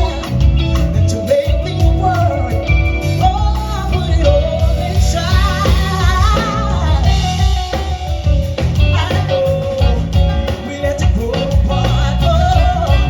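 Band music with a singer's melody line over strong bass and guitar.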